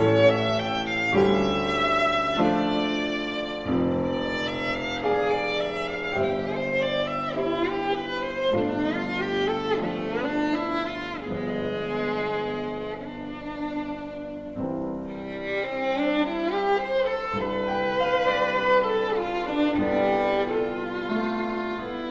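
Background music led by violin and other bowed strings playing a slow melody.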